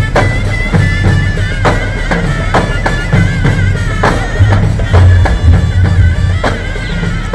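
Loud traditional-style music: a reedy wind instrument plays a wavering, ornamented melody over a heavy, steady drum beat.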